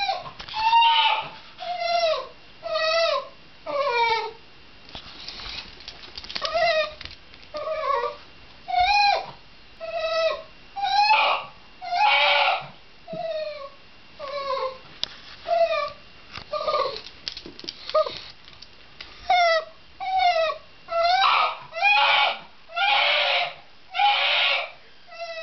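A Shiba Inu crying out over and over in high, drawn-out whines, about one cry a second, each falling in pitch; several around the middle and near the end are louder and harsher, close to a scream.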